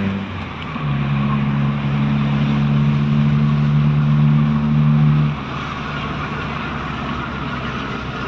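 Toyota Corolla's 2E four-cylinder engine pulling steadily under load while driving, with its ignition timing freshly reset. The engine note holds level for about four seconds, then drops back to a quieter run a little past the middle as the throttle eases off.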